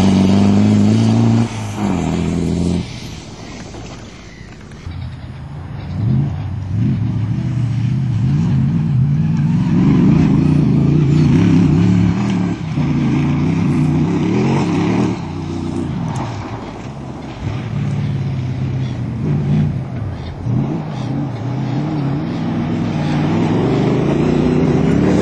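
Engines of off-road competition cars revving hard as they race past one after another on a dirt course, the pitch rising and falling with throttle and gear changes. There is a quieter spell a few seconds in, before the next car comes through.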